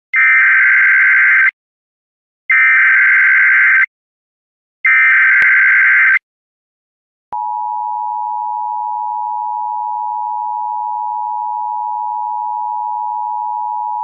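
Emergency Alert System SAME header: three loud bursts of warbling digital data tones, each about a second and a half long with a short gap between them. About a second after the third, the steady two-tone EAS attention signal starts and holds, announcing a tornado watch.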